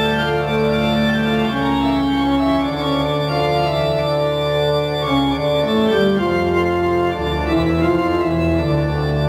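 Organ-sounding music: sustained keyboard chords, each held for a second or two over a steady bass, with the notes stepping downward about two-thirds of the way through.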